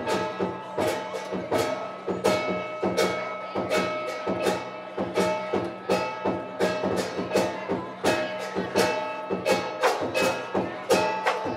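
Lion dance percussion: a drum and clashing cymbals beating out a steady, fast rhythm, about two strikes a second, over a continuous metallic ringing.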